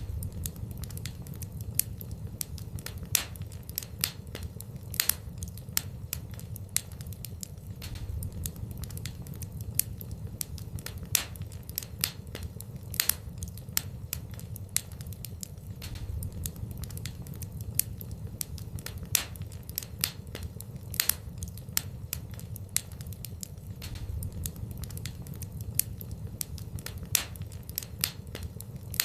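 Wood fire crackling in a fireplace: many irregular sharp pops and snaps of burning wood over a steady low rumble of the flames.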